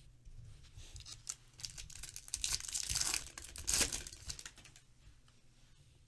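Foil trading card pack wrapper crinkling and being torn open by hand, loudest in the middle and fading out near the end.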